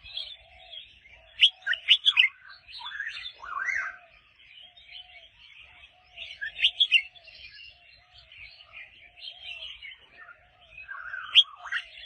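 Red-whiskered bulbuls singing: short, loud whistled phrases break out a few times over a steady chatter of birdsong.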